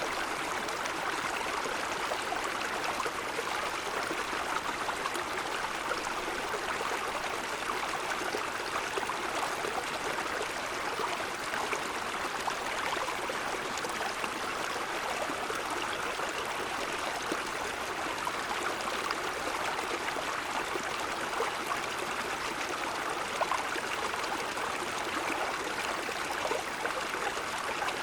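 Small mountain stream flowing steadily over stones, an even babbling rush of water with no change.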